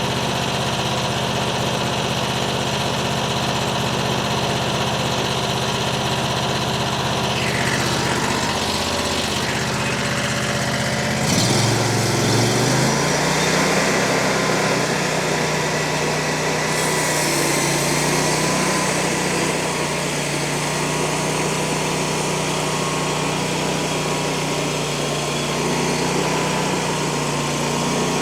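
Small gasoline engine of a Frontier OS35 portable bandsaw mill running steadily. About eleven seconds in its pitch shifts as it is throttled up, and a few seconds later a hiss joins it, the band blade cutting into the oak log.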